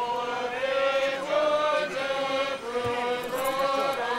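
A group of voices chanting a prayer together in unison, in long held notes that step between pitches.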